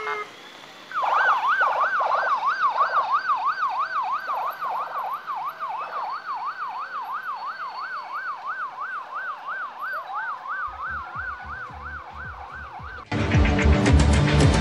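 Police escort siren in fast yelp mode, its pitch swinging up and down about three times a second, with a second siren beginning a slow rise near the end. Music cuts in suddenly just before the end.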